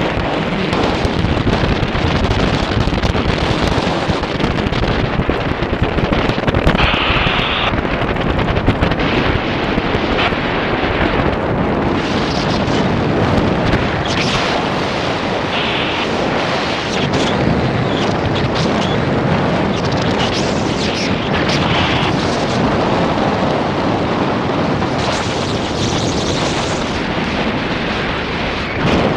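Airflow buffeting the microphone of a paraglider in flight: a loud, steady rushing rumble, with a few brief higher-pitched sounds along the way.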